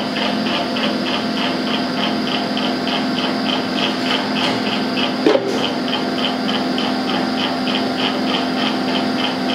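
Steady machine hum with a regular high chirp about three times a second, and a single knock about halfway through.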